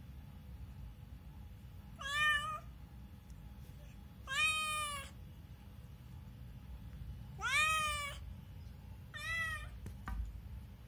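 Domestic cat meowing four times, about two seconds apart, each meow under a second long and the last one shorter.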